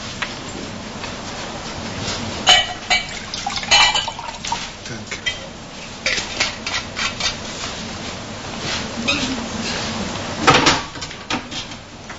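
Clattering and knocking of hard objects, a string of short clicks and knocks with louder ones about two and a half, four and ten and a half seconds in.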